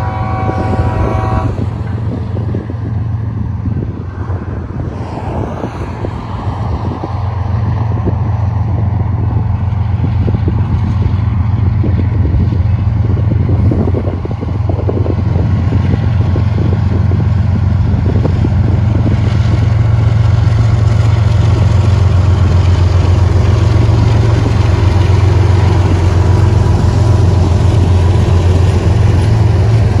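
Four-unit BNSF diesel locomotive consist approaching and passing close by. A train horn blast cuts off about a second and a half in, then the deep engine drone grows steadily louder and stays loud as the locomotives go by.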